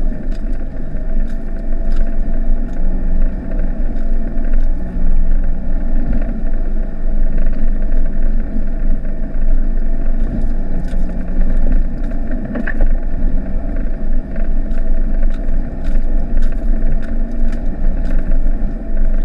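1995 Mitsubishi Delica's 2.8 turbodiesel engine running at low speed in the cab as the van crawls along a rough muddy track. The engine note rises and falls with the throttle, and frequent short knocks and rattles come from the van jolting over the ruts.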